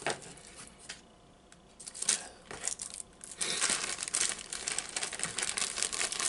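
A plastic snack bag crinkling as it is handled: a few scattered crackles, then continuous crinkling from about halfway.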